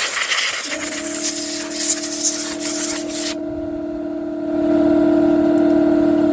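Compressed-air blow gun blasting a loud hiss for about three seconds, blowing dirt off the strimmer. Under it an air compressor starts up about a second in and runs with a steady drone that gets louder a little past the middle.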